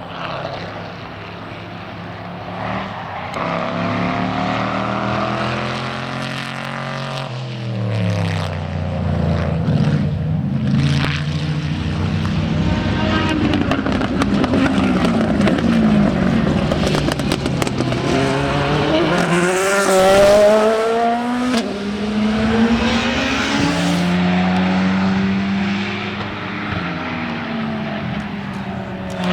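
Racing car engines at speed: a car's note falls in pitch as it passes about a quarter of the way in, then an engine climbs through the revs in repeated rising runs, like upshifts under acceleration, before settling to a steadier note near the end.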